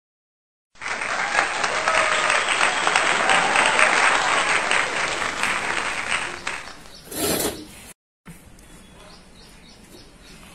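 Applause, a dense patter of clapping that starts abruptly after a short gap, runs about six seconds and then fades out. A brief burst of noise follows, then faint background sounds.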